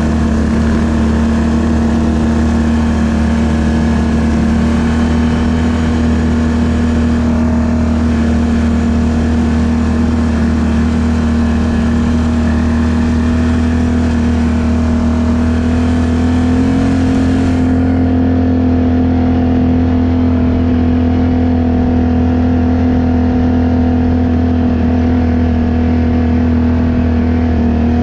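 ATV engine running at a steady speed, its pitch stepping up slightly about two-thirds of the way through.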